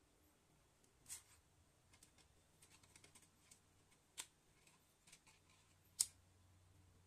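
Faint scattered clicks and taps of small hard objects being handled, the sharpest about six seconds in, over a faint low steady hum.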